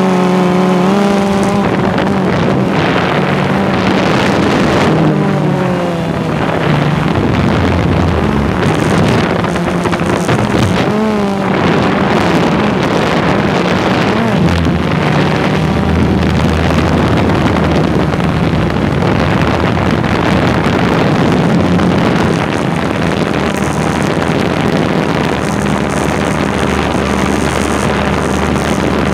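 RC model airplane's motor and propeller running close to the onboard camera, a steady drone whose pitch shifts up and down with the throttle, over a rush of noise.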